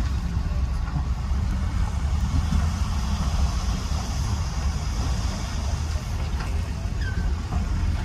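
Heavy diesel dump truck engines running, a steady low rumble as a tipped truck bed unloads soil.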